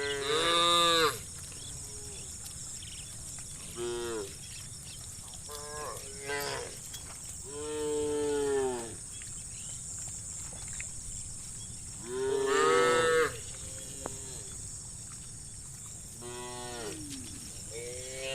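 Herd of cows mooing: about seven separate moos from different animals, some close and loud, others fainter. Each moo is a drawn-out call that arches up and falls in pitch. The loudest come right at the start and about twelve seconds in, and the longest, about a second and a half, comes around eight seconds in.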